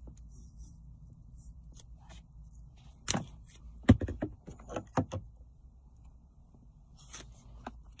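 A handful of sharp plastic clicks and knocks, loudest about four seconds in, as the tape-wrapped BMW E46 hazard and door-lock switch is handled and turned over against the plastic centre console.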